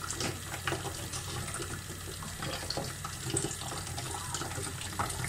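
A thin stream of purified water trickling and splashing into a part-filled plastic water bottle from a reverse osmosis purifier's outlet tube, in small irregular splashes. Under it runs the steady low hum of the purifier running.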